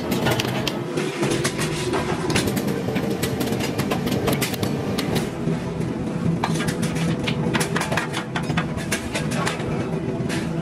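Workshop machinery noise: a steady machine hum with frequent sharp metallic clanks and knocks of tools and steel shovel parts being handled.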